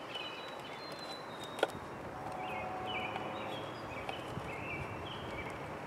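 Outdoor background with small birds chirping in short repeated notes, and one sharp click about a second and a half in.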